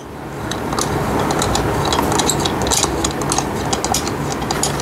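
Irregular clicks and light metallic rattles of a small screw and tool being handled and worked against a tricycle's metal and plastic frame, over a steady background rush.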